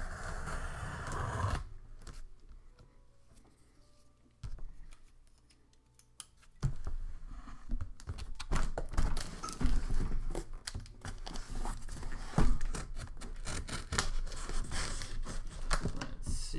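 Knife blade slicing through packing tape and scraping along a cardboard box, with the box rustling and knocking as it is handled. A quiet pause of a few seconds comes in the middle, after which the cutting and handling go on as a busy run of scratches and clicks.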